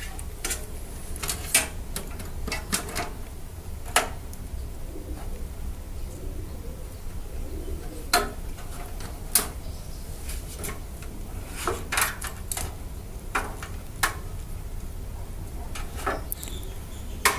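Scattered clicks and light plastic knocks of power-supply cables and connectors being handled and sorted inside a PC case, about a dozen sharp taps spread out over a low steady hum.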